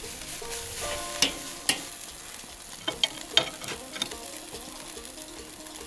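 Ribeye steak sizzling as it sears on the hot grate of a Weber charcoal kettle grill, a steady hiss, with several sharp clicks of metal tongs.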